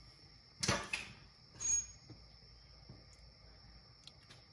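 Two short bursts of handling noise from a plastic coolant jug being picked up and opened, the first louder, about a second apart, over a faint steady high whine.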